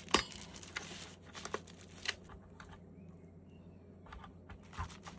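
Hands working on PC parts: a sharp click, then about a second of crinkly rustling, followed by a few lighter clicks and taps.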